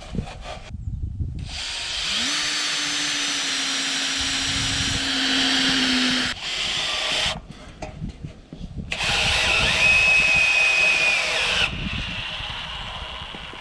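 Cordless drill-driver running twice. The first run, about four seconds long, spins up and holds a steady whine while drilling through a galvanised steel bracket into an oak wedge. After a short pause, a second run of about three seconds drives a screw in flush.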